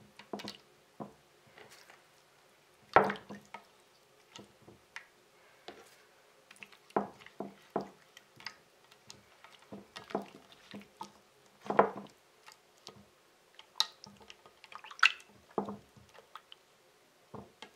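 Raw salmon fillets being laid and turned by hand in a glass baking dish of liquid marinade with sliced garlic and ginger: irregular wet squelches, drips and small knocks, the loudest about 3 s, 12 s and 15 s in.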